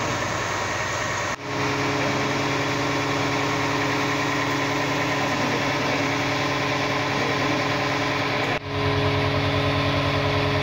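Fire truck's diesel engine running steadily at idle, a low even hum, with two brief dropouts, about a second and a half in and two seconds before the end.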